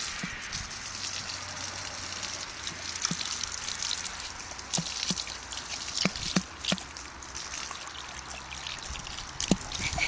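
Garden hose nozzle spraying a thin, steady stream of water that hisses and splashes against a horse's muzzle, with irregular sharp splashes and drips.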